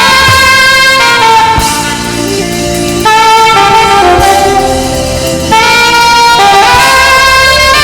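Saxophone playing a melody of long held notes over a backing track with a steady beat.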